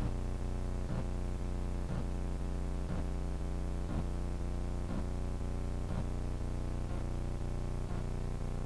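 Steady low hum made of several fixed tones, with a faint tick about once a second, on the audio of the plane's analogue video feed.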